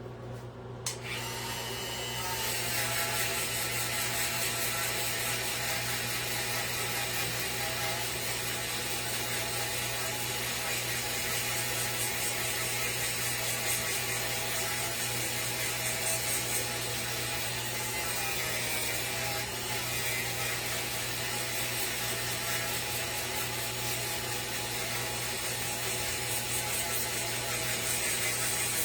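A small handheld power tool, such as a rotary carving tool, runs and works against wood while shaping the sign, its motor whine wavering slightly with the load. It starts about two seconds in after a couple of clicks.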